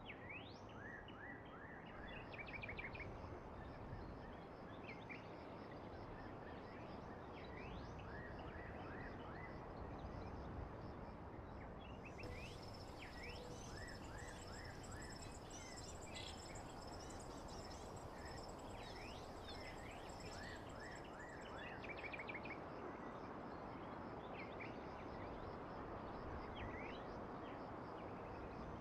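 Small birds chirping repeatedly: short rising calls and quick runs of notes over a steady background hiss, with a thin, steady high-pitched tone underneath.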